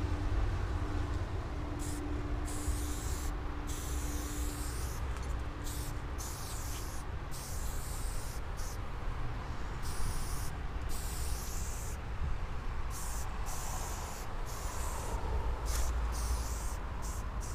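Aerosol spray paint can hissing in short and longer bursts, starting and stopping many times as each stroke of a letter is sprayed, beginning about two seconds in. A steady low rumble runs underneath.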